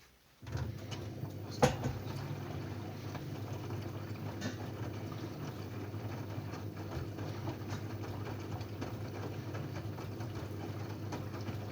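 LG F1281HD washing machine running on its rinse cycle, noisy during the rinse. It starts up suddenly about half a second in and then runs with a steady low hum. A single sharp knock comes about a second and a half in.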